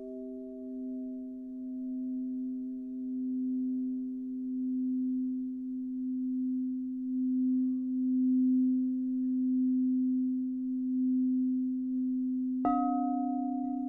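Singing bowls ringing: one bowl holds a long, steady low tone with higher overtones, swelling and fading in slow waves. Near the end another bowl is struck and adds its own slightly higher ringing tones.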